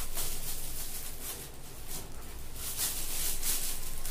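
Foil gift wrap and plastic packaging rustling and crinkling as a present is unwrapped and handled, in irregular bursts.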